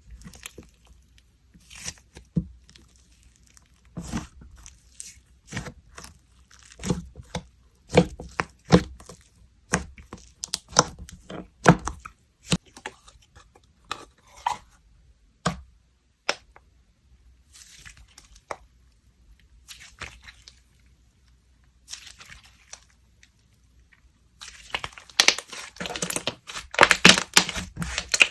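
Soft soufflé-type slime being squished, pressed and stretched by hand, making a string of separate clicks and pops. Near the end it turns into a dense crackling, tearing run as the slime is pulled apart.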